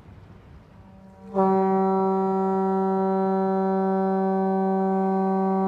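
A barge's horn comes in about a second in and sounds one long, steady blast.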